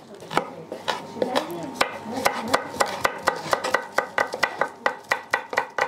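Two chef's knives rapidly chopping spring onions on a wooden cutting board: a fast, uneven run of sharp knocks, several a second, as the blades strike the board.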